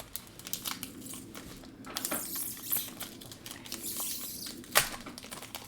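Foil booster pack wrapper crinkling and tearing as it is pulled open by hand, with small clicks of the cards being handled and one sharp snap near the end.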